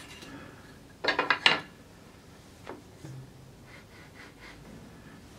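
Wooden parts being handled and set against a wooden frame: a quick cluster of light knocks and clicks about a second in, a fainter click a little before three seconds, and soft rubbing of wood on wood between them.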